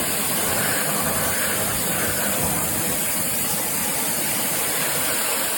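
QSMYOYE 2200 W electric pressure washer running, its high-pressure water jet spraying with a steady hiss.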